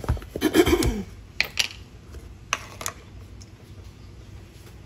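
Containers and utensils handled on a kitchen counter: a louder cluster of knocks and handling noise in the first second, then a few single light clicks.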